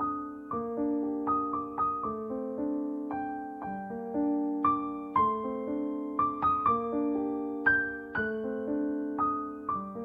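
Instrumental piano music: a slow melody of single struck notes that ring and fade over lower held notes.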